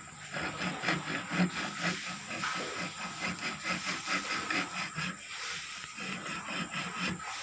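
Hand jab saw cutting 12 mm plywood with quick back-and-forth rasping strokes, about four a second.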